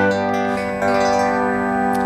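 Instrumental theme music with held chords that change once a little under a second in.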